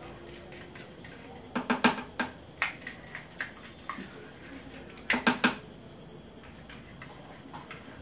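Small bottle of food colouring tapped against the rim of a plastic blender jar to shake drops out: two quick runs of about four sharp clicks a few seconds apart, with a few single clicks between.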